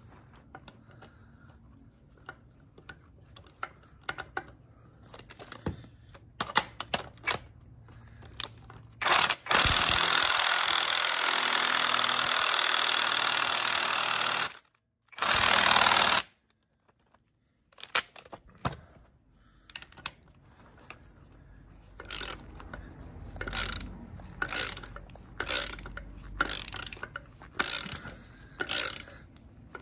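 Cordless impact wrench hammering a bolt in on a long socket extension for about five seconds, then a short second burst. Scattered clicks come before it, and after it a hand ratchet works the bolt in short strokes about once a second, giving it a final nip by hand.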